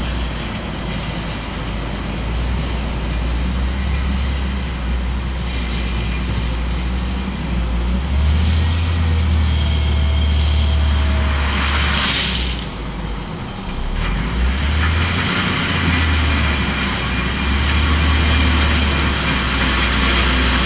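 Volvo L70F wheel loader's diesel engine running as it works, its note rising and falling with the load and revs. A brief hiss about twelve seconds in.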